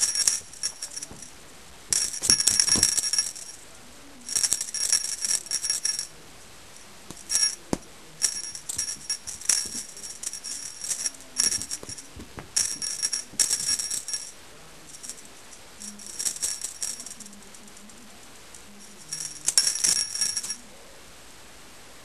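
Small jingle bell on a cat wand toy jingling in short bursts of a second or two as the toy is shaken and batted, with brief pauses between bursts.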